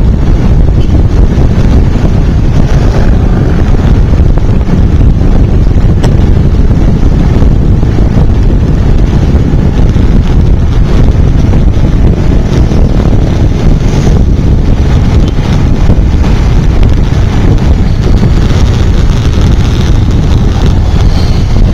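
Wind buffeting the microphone of a camera on a moving motorbike: a loud, steady rumble that drowns out the engine and the surrounding traffic.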